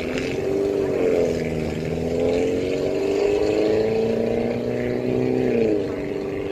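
A motor engine running at a steady pitch that rises slightly about a second in and drops away near the end.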